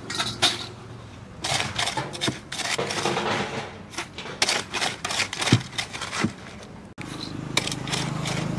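An irregular run of sharp clicks and clatters over a low steady hum, changing abruptly about seven seconds in.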